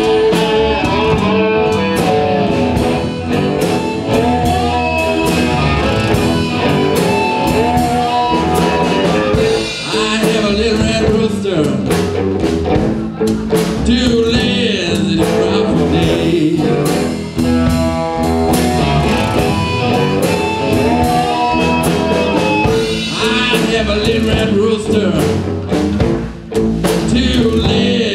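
A live blues band playing: amplified harmonica played into a microphone, cigar box guitars and a drum kit keeping a steady beat.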